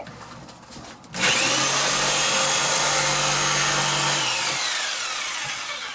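Jigsaw cutting a small hole in a wall: the motor starts abruptly about a second in, runs for about three seconds, then is released and winds down with a falling whine.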